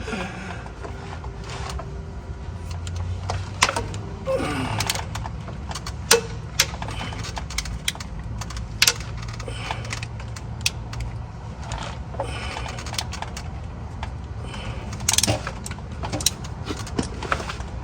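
Scattered metallic clicks and knocks of hand work on a Ford F-150 engine as a stretch-fit AC belt is worked onto its pulley with a zip tie, over a steady low hum.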